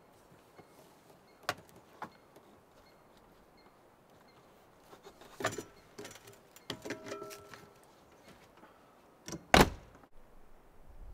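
Fiberglass truck camper's entry door clicking open, creaks as someone steps down the fold-out metal steps, then the door shut with a sharp bang near the end.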